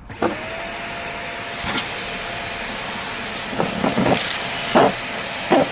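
Shark vacuum cleaner switched on, its motor running with a steady whine as the hose nozzle sucks debris off concrete. There are several sharp rattles, the loudest near the end, as bits of dirt are pulled into the hose.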